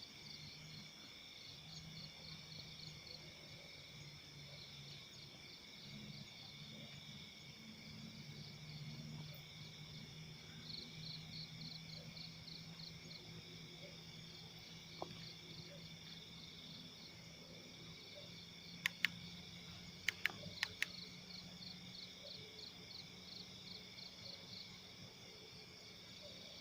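Night chorus of crickets and other insects: several steady high trills with a pulsing chirp over them, and a faint low hum beneath. A few sharp clicks come about two-thirds of the way through.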